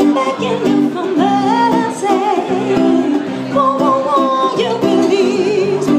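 Live duo: a woman singing into a microphone with held, wavering notes over an acoustic guitar accompaniment.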